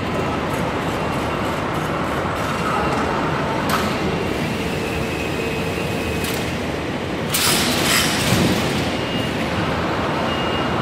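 Mosca KCR automatic pallet strapping machine and its powered roller conveyor running: a steady mechanical hum, with short hissing bursts about four and six seconds in and a longer, louder hiss at about seven to eight and a half seconds.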